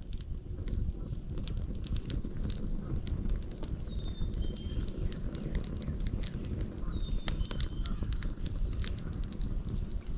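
Wood fire crackling steadily over a low rumble, with many sharp snaps. A bird gives a short two-note call, a high note stepping slightly lower, a few times about three seconds apart.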